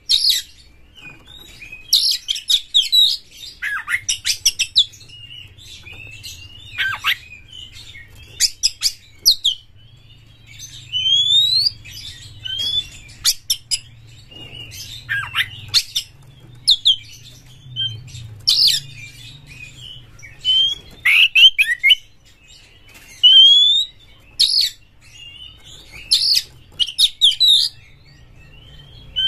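Oriental magpie-robin singing: loud bursts of varied whistled phrases, including rising whistles, mixed with short sharp notes, coming every second or two.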